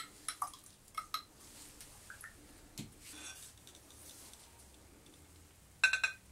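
Glassware clinking while a collodion plate is processed: a sharp clink at the start, a few lighter taps in the first second or so, and a cluster of ringing clinks near the end, the loudest of them.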